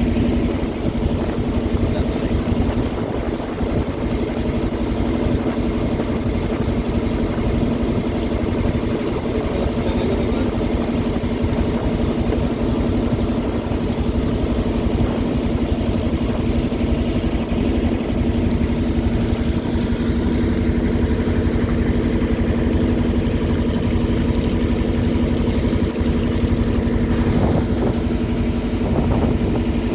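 A river boat's engine running at a steady speed, an even hum with a rough low rumble underneath.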